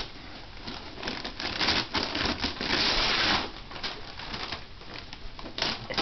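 Wrapping paper and tissue paper rustling and crumpling in uneven bursts, loudest about two to three seconds in.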